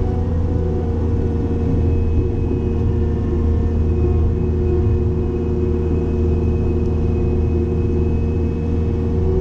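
Cat 262D skid steer's diesel engine running steadily, driving a Loflin open-front hydraulic brush cutter as it mows brush.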